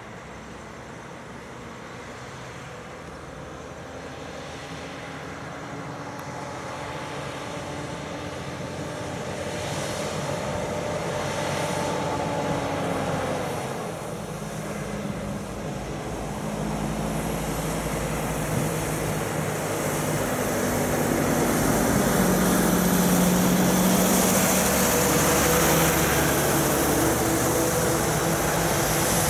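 Heavy diesel trucks with trailers approaching on a wet road, their engines getting steadily louder. About halfway through, the engine note drops, and a second, louder truck engine and tyre noise build towards the end.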